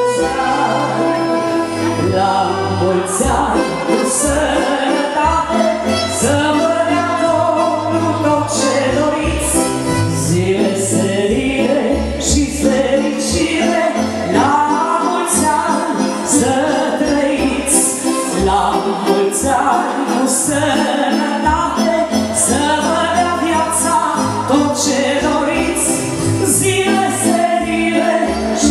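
Music: a song with singing over a bass line and percussion with recurring cymbal hits, playing without a break.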